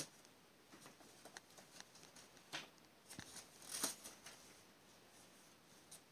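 Faint rustles and crinkles of a small paper card being handled and folded in a child's fingers, a scatter of short sounds with the loudest a little past the middle.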